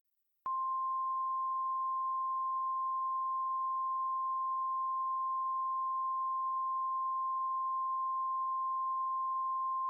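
Emergency alert attention tone: one steady, pure, high beep held unbroken, starting about half a second in. It is the single-tone warning alarm of NOAA Weather Radio, sounded to signal that an emergency message is about to follow.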